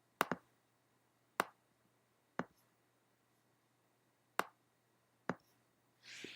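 Sharp computer mouse clicks: a quick double click, then single clicks about a second apart. A short soft hiss near the end.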